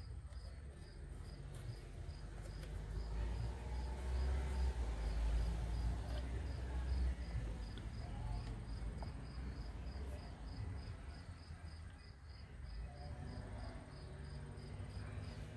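A cricket chirping steadily, about two to three short high chirps a second, over a low rumble that swells about four to seven seconds in.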